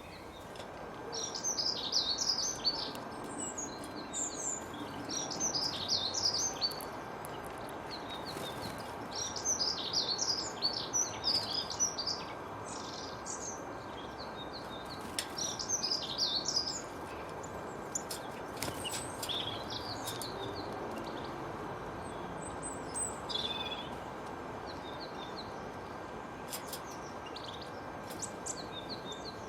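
Songbirds singing in bursts of quick, high chirping phrases a couple of seconds long, with pauses between; the phrases grow fainter in the second half. Underneath runs a steady background hiss.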